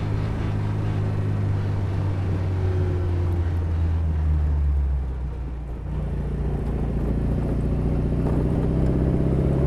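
Austin Healey 100M's 2.7-litre four-cylinder engine running on the road. Its note sinks, dips briefly about five seconds in, then climbs steadily in pitch as the car accelerates.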